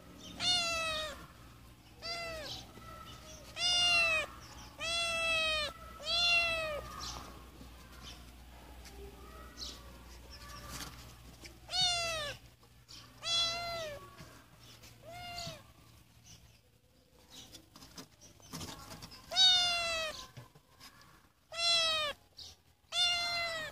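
Siamese kitten meowing over and over: about a dozen short, high-pitched meows, each rising and then falling in pitch. They come in three clusters with pauses of a few seconds between.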